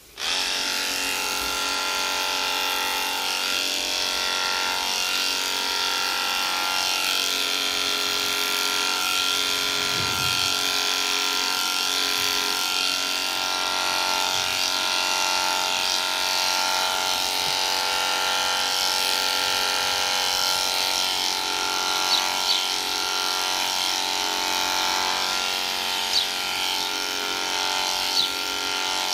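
Electric horse clippers switched on right at the start and running with a steady hum while they clip a horse's belly coat, with a few short ticks in the second half.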